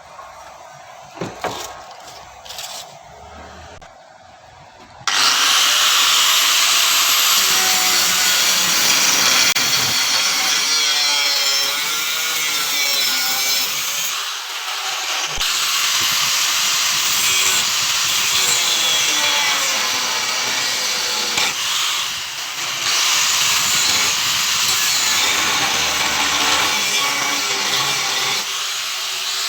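A few light knocks, then about five seconds in a power tool starts cutting or grinding under load. It runs on loud and steady with a wavering whine, easing off briefly twice.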